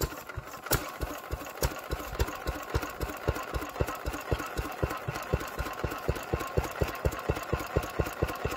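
Small air-cooled single-cylinder stationary engine, just hand-started, running on its own with an even beat of about five firing strokes a second.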